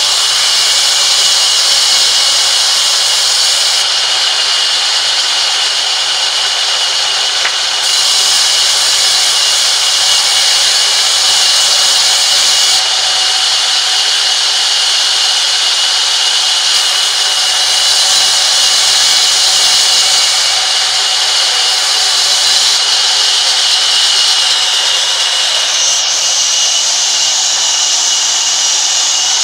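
Sawmill vertical band saw running and ripping a long timber plank: a loud, steady high hiss with a constant whine, shifting in tone every few seconds as the wood is fed through the blade.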